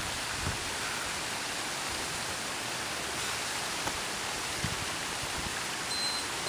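Steady rush of water from a small waterfall at a pond, with a few faint thuds of feet on concrete from burpees. Near the end, two short high beeps from an interval timer.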